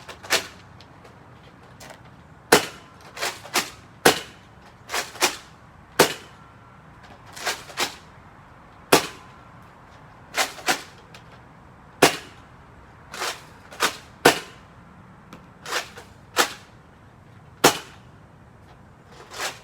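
Nerf Rival Apollo blaster being fired shot after shot, a sharp snap roughly every second, many of them in close pairs.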